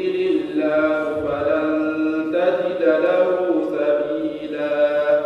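A young man's voice chanting a Quran recitation (tajwid) into a microphone, in long drawn-out melodic phrases with sustained held notes.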